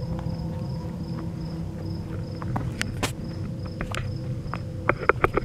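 Crickets chirping in a steady pulsing trill, with footsteps walking on a road. The steps come louder and quicker near the end.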